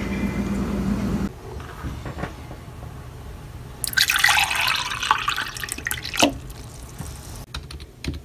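Water poured from a large plastic bottle into a drinking glass, splashing for about two seconds from a little before halfway. It is preceded by a steady low hum that cuts off after about a second, and a few key clicks come near the end.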